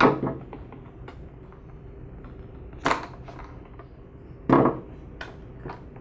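Sharp handling clicks and knocks, three louder ones with lighter ticks between, from hands working rubber fuel lines off a backpack blower's carburetor. A low steady hum runs underneath.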